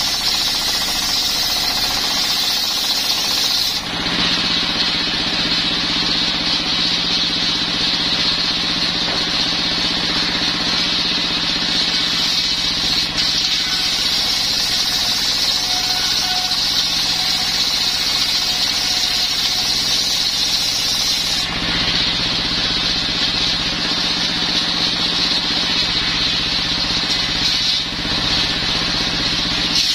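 Stationary single-cylinder diesel engine running steadily, driving a table-mounted circular saw. The blade cuts through coconut wood for the first few seconds, then spins free, and it cuts again for several seconds in the second half.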